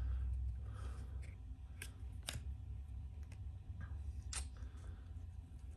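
Stack of chrome trading cards being handled, the front card slid off and tucked behind the rest, giving a few sharp clicks and light rustling of card edges over a steady low hum.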